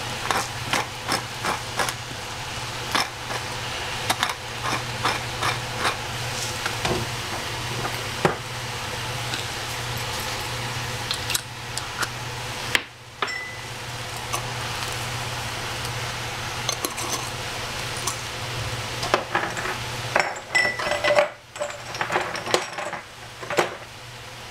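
Kitchen clatter: utensils and cookware knocking and clinking against each other in many short sharp clicks, over a steady low hum.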